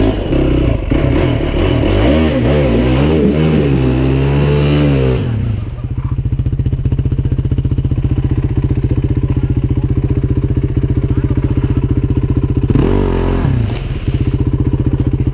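Quad (ATV) engine revving up and down unevenly, then settling about six seconds in to a steady fast putter at idle, with a short rev near the end. The quad is in a deep mud hole.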